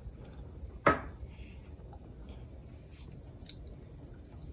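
Knife slicing through smoked brisket on butcher paper, with faint scrapes and clicks and one sharp knock about a second in.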